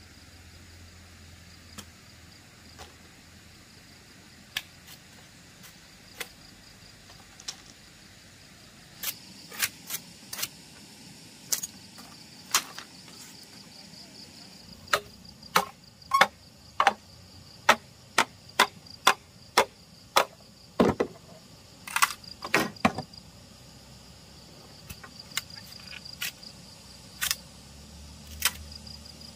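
Sharp knocks at irregular intervals, a few at first and then many close together in the middle, over a steady high-pitched insect chirring.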